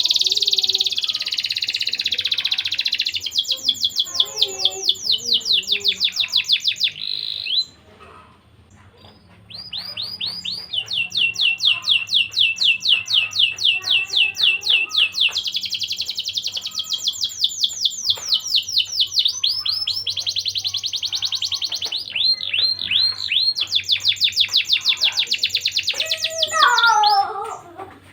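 Domestic canary singing in full song: long, fast rolling trills of rapidly repeated high notes, broken by a pause of about two seconds early on. Near the end comes a lower, falling sound.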